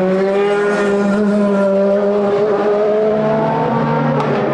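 Racing car engines running at high revs on the circuit, holding steady pitches. A lower engine note takes over about three seconds in.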